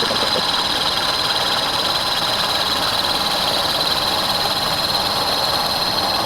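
Metal lathe running steadily during a boring pass, with a constant high-pitched whine over the machine noise.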